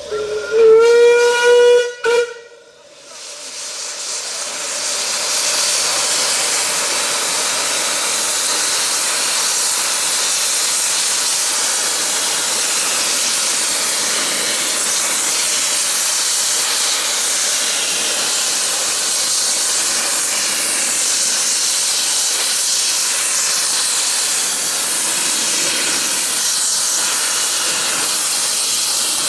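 A 15-inch-gauge steam locomotive's whistle gives one long blast, rising slightly in pitch, with a brief break near its end. Then a loud, steady hiss of escaping steam builds over a few seconds and carries on.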